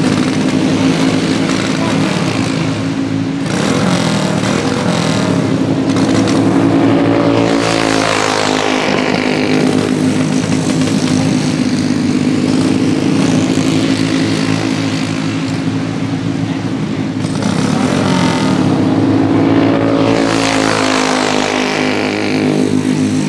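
Two racing kart engines running at speed around an oval, a steady buzzing drone. The pitch swells and then falls as the karts pass close by, twice: about eight seconds in and again around twenty seconds.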